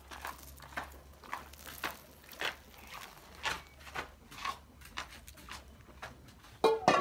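A dog lapping water from a bowl in short, even laps about two a second. A brief louder sound comes near the end.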